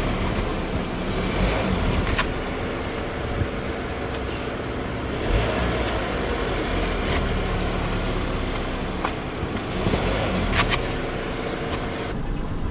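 A car running at low speed, with a steady low engine hum and several short, sharp cracks as objects are crushed under its tyre.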